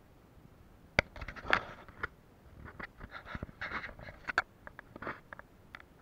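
Handling noises: a sharp click about a second in, then a few seconds of scraping, rustling and light knocks.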